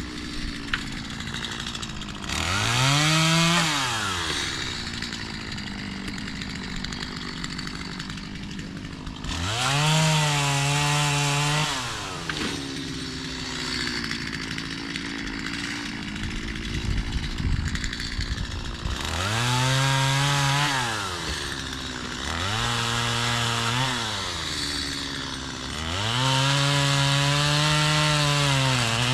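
Gas chainsaw idling and revving up to full throttle five times, each run lasting one to three seconds before dropping back to idle, as it cuts through crepe myrtle branches.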